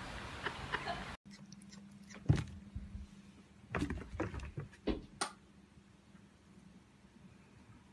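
A few short knocks and soft thumps, the loudest about two seconds in, then only a faint steady hum.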